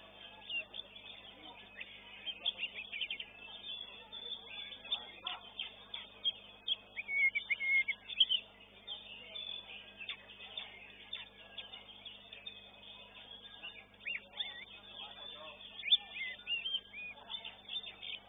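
Kacer (oriental magpie-robin) singing in its contest cage: a varied run of short chirps, whistles and quick trills, with louder clusters spread through.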